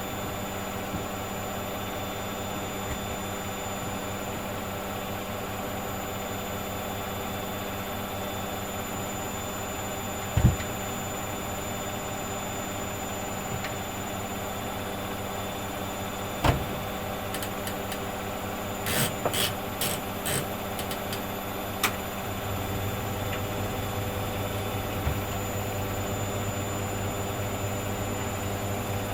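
Hoover Dynamic Next front-loading washing machine running a cotton 40 wash with a half load, with a steady motor hum. Two sharp thuds come about ten and sixteen seconds in, then a short run of clicks and rattles, and from about twenty-two seconds in a deeper hum sets in.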